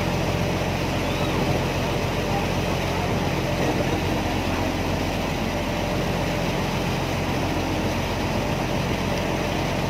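River ferry's engine running steadily while the vessel is underway, a constant low engine sound with an even hiss over it.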